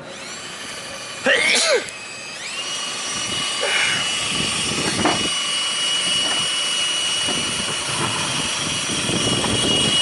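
Flexible-shaft rotary grinder spinning up, reaching full speed about two and a half seconds in and then running with a steady high whine, used to buff down a fiberglass siren shroud. A short loud bending sound comes about a second and a half in.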